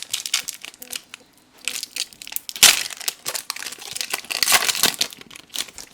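A Donruss Optic trading card pack's foil wrapper being torn open and crinkled, in a run of sharp crackles with a loud rip about two and a half seconds in.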